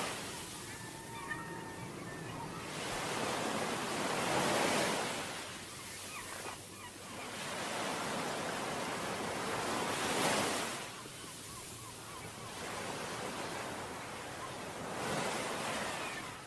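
Sea waves breaking on a beach: three waves surge in and wash back, one about every five to six seconds.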